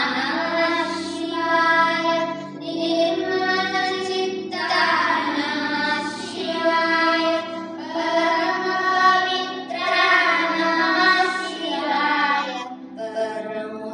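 Two boys singing a Kannada devotional song into one microphone, in sung phrases of a couple of seconds each, over steady backing music.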